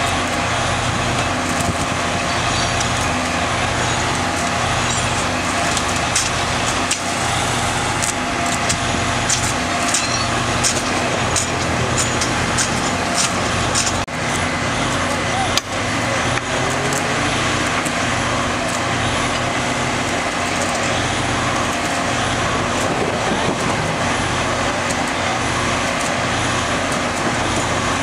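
Flash-butt rail welding truck running steadily beside the track, a constant low engine hum, with a few sharp clicks in the first half.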